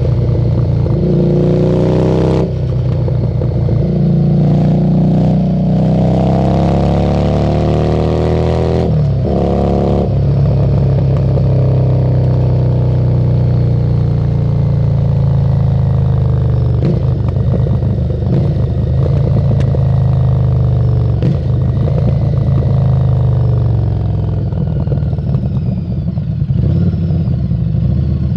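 Harley-Davidson Street 750's liquid-cooled V-twin running through a Screamin' Eagle exhaust under way. The revs climb, break at an upshift about two seconds in, climb again to a second shift near nine seconds, then hold steady. They ease off a little later on and pick up again near the end.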